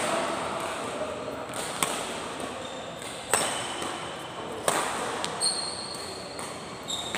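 Badminton doubles rally in an echoing hall: sharp racket strikes on the shuttlecock about every one and a half seconds, with a few quicker hits and high shoe squeaks on the court mat in the second half.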